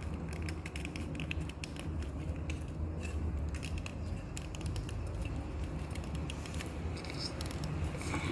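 Light metallic clicks and rattles from hand work on the engine as the timing belt is fitted onto the bank 2 camshaft pulley, over a steady low hum.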